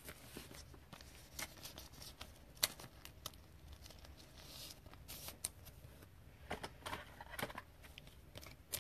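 Faint rustling and scattered light clicks of a trading card being slid into a clear plastic card sleeve and handled.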